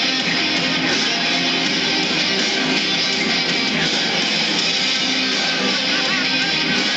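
Loud, steady guitar-driven rock music with electric guitar, played over a stadium's sound system.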